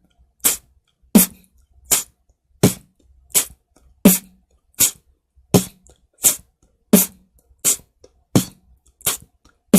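Beatboxed four-beat at a slow, even pace: a mouth kick drum ("puk") alternating with a breathy "huk" hi-hat, made by spitting the kick with the lower lip held against the upper teeth. About fourteen short strokes, a little over one a second.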